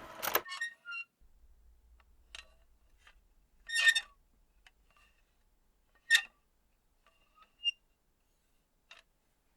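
About five short, high, chime-like ringing notes at irregular intervals, with near silence between them; the ones about four and six seconds in are the loudest.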